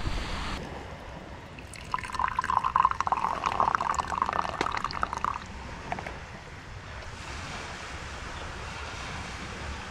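Liquid being poured into a container: a trickling pour lasting about three and a half seconds, starting about two seconds in, over a steady low hiss.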